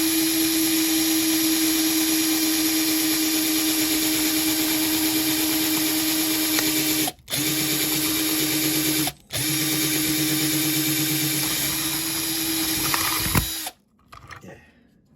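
Small electric drill running steadily as it drills out the rivets of a diecast model car. It stops briefly twice in the middle, then cuts off shortly before the end, followed by a few faint light clicks.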